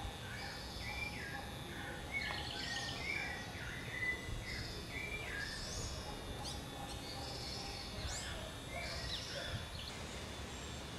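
Several birds calling with short, repeated chirps and whistles, over a steady low background noise.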